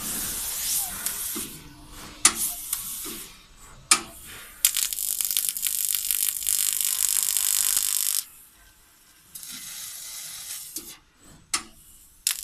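Fiber laser cutting 3 mm carbon steel: bursts of steady hissing, each opening with a sharp click. The longest burst runs about three and a half seconds in the middle, with shorter ones before and after and quieter gaps between cuts.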